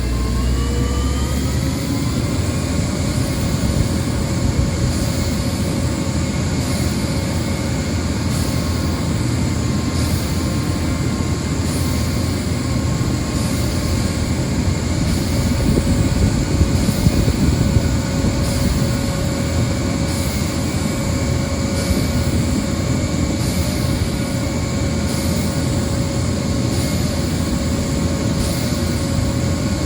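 An engine revs up over the first couple of seconds, then runs steadily at high revs with a constant drone over a low rumble.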